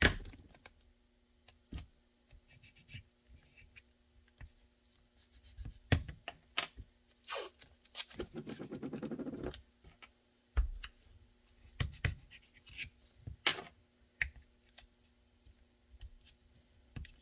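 Light clicks, taps and rustles of hands working on a tape-wrapped pistol mold on a cutting mat, with a stretch of blue painter's tape being pulled off its roll about eight seconds in.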